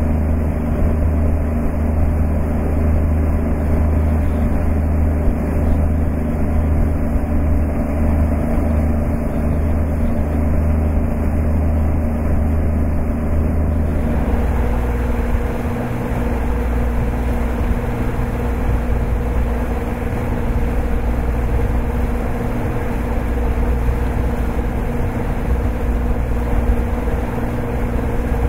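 Electric wooden runabout under way at speed: a steady low rumble with water rushing along the hull and a few steady low hums. The tone changes about halfway through.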